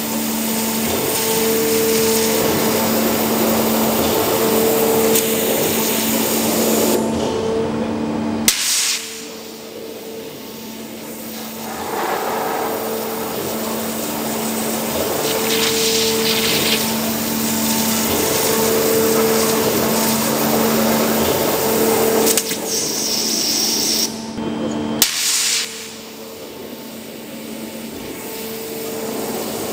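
CNC water jet cutting stainless steel with an ultra-high-pressure abrasive jet: a loud, steady hiss over a machine hum that comes and goes. Twice a click is followed by a few quieter seconds, after which the hiss builds back up.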